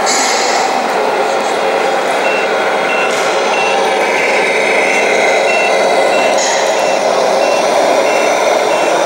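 Reversing beeper of a radio-controlled model truck's sound unit: a short high beep repeating a little under twice a second, starting about two seconds in, over a steady background din. There are brief hisses at the start and about six and a half seconds in.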